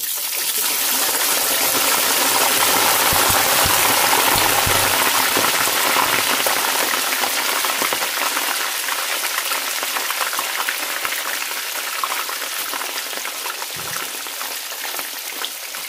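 Hot frying oil sizzling loudly as a batch of vegetable slices is dropped into the pan. The sizzle starts abruptly, is strongest over the first few seconds, then slowly eases as the slices fry.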